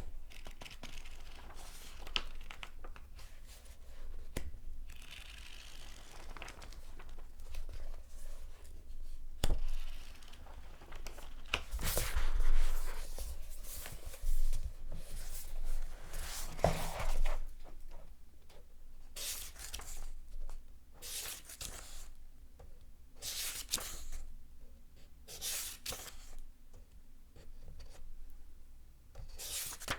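Paper pages being turned one after another, each turn a short rustle; a longer, louder stretch of rustling comes a little before the middle, and the turns come quicker and more regular in the last third.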